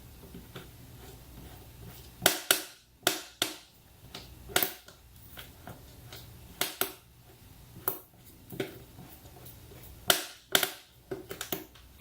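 Irregular sharp clicks and knocks of hand work on motorcycle parts and fittings, about a dozen snaps spaced unevenly with clusters about two seconds in and again near the end.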